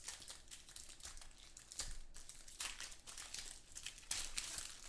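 Irregular crinkling and crackling of a trading-card pack wrapper and cards being handled between card reveals.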